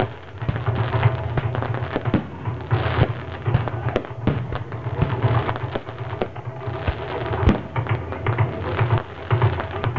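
Fireworks bursting and crackling in many sharp bangs, over taiko drumming that keeps up a steady low beat.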